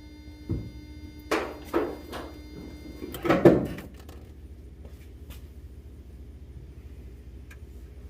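A dull thump, then several sharp knocks and a louder clattering knock about three and a half seconds in, from handling parts by hand. A faint steady tone fades out partway through, leaving a low hum.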